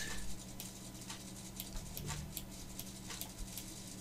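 Faint, irregular clicks of a computer mouse, roughly three or four a second, over a low steady electrical hum.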